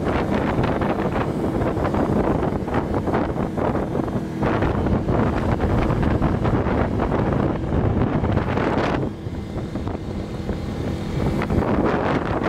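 A tour boat's motor running steadily as the boat moves along the water, with wind buffeting the microphone; the sound drops somewhat about nine seconds in.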